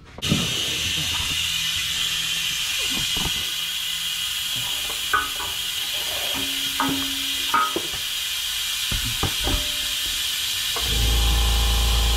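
A steady hiss with scattered light clicks and knocks. About eleven seconds in, a steady low hum starts.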